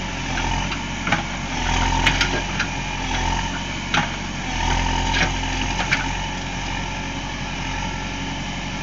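JCB backhoe loader's diesel engine running, its note swelling and easing as the digging arm and bucket are worked hydraulically, with a few sharp knocks as the bucket works the stones.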